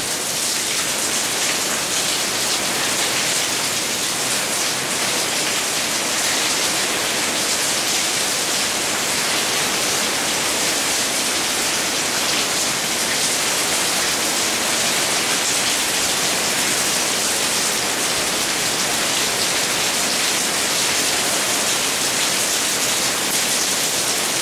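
Heavy rainy-season downpour pouring steadily onto a waterlogged yard: a dense, even hiss of rain with no let-up.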